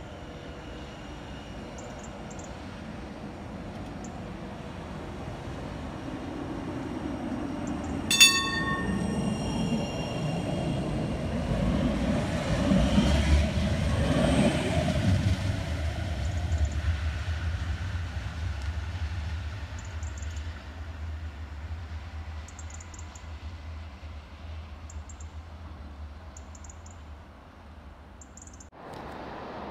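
Class 399 tram-train approaching and running past, the rumble building to its loudest about halfway through and then fading as it pulls away. One short, sharp horn toot about eight seconds in.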